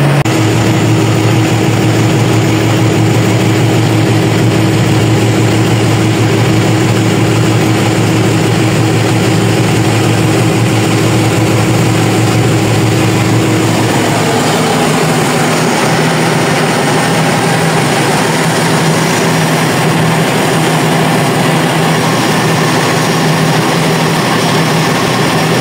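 Heavy farm tractor engine running steadily, heard from inside the cab as a loud, constant drone with a steady hum on top. About halfway through the hum stops and the drone takes on a different pitch.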